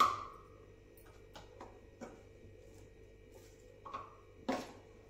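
A spoon clicking and tapping against a spice jar as masala is scooped out: a short ringing knock at the start, several small ticks, and a sharper click near the end.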